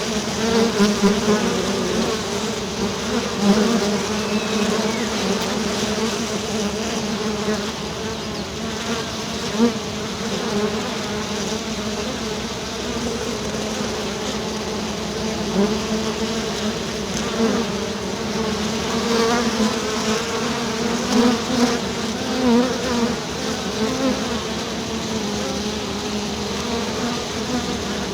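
Many bees buzzing together, a dense continuous hum that wavers in pitch and swells slightly in loudness as individual bees pass close.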